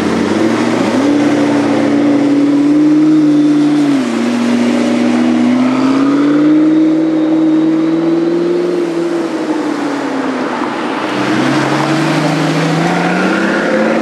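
Supercar engines accelerating hard as the cars pull away one after another. The engine note climbs, drops abruptly about four seconds in, climbs slowly again, then falls away, and a fresh rising note builds near the end.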